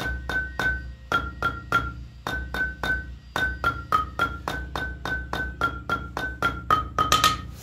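Background keyboard music: short, quick notes in a steady beat, about four a second, stopping near the end.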